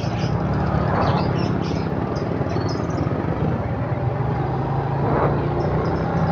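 Motor scooter engine running at a steady low idle, with small caged birds chirping and street traffic swelling past twice, about a second in and again near five seconds.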